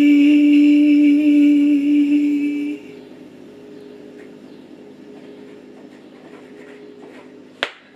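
A single steady held note with a rich set of overtones, loud for about the first three seconds, then dropping suddenly to a faint lingering tone. A short sharp click comes near the end.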